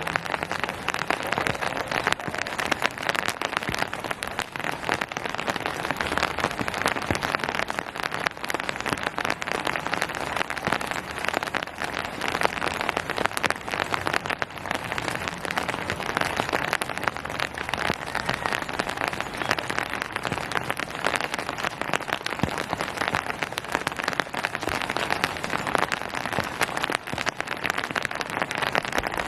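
Steady rain falling, a dense, even patter of countless individual drops hitting surfaces.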